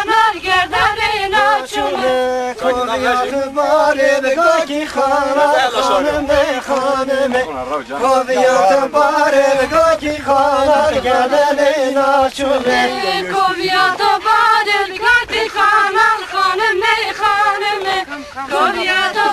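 A group of men and women singing a folk dance song together in unison, sung by the line dancers themselves.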